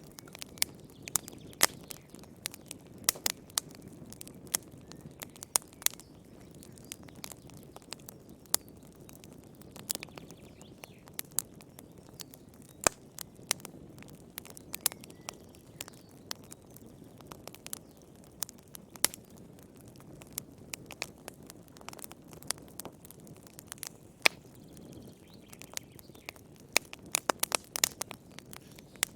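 Wood fire crackling in a fireplace: frequent sharp pops and snaps over a low, steady hiss of the flames, with a quick run of pops near the end.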